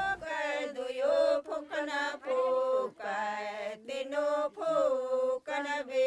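Singing in short phrases about a second long, with brief breaks between them.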